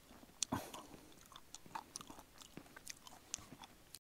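A person chewing food close to the microphone, with many small clicks and wet mouth sounds; the sound cuts off suddenly near the end.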